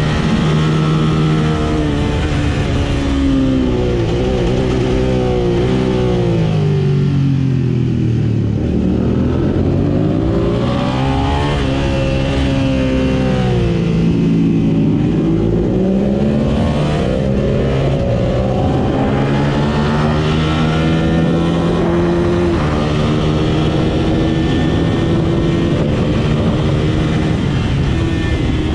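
First-generation Suzuki SV650's 645 cc V-twin engine heard onboard at racing speed, over wind noise. The revs fall away twice as the bike slows for corners, about a quarter and a half of the way through, and climb again each time through the gears, running high toward the end.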